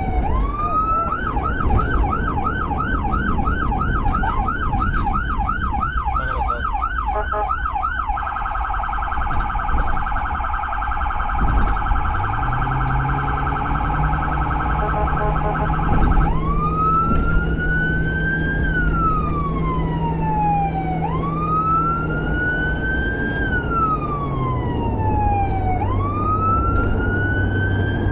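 Electronic emergency-vehicle siren running through its tones. It starts with a fast yelp of about three cycles a second, switches about eight seconds in to a rapid warble, then from about halfway settles into a slow wail rising and falling every four to five seconds. Engine and road noise run underneath.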